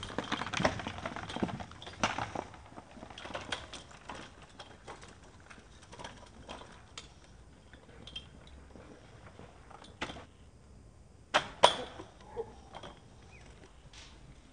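A child's bike rolls over a dirt yard with a scraping rustle at the start. Later a kick scooter's small wheels bump over an object on the ground, giving a few sharp knocks and clatters, the loudest about twelve seconds in.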